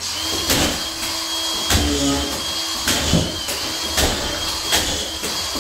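Drywall screw gun running continuously with a steady high whine, driving screws through the wall sheet into steel studs. The whine dips briefly under load, and there are about five sharp clicks as screws seat.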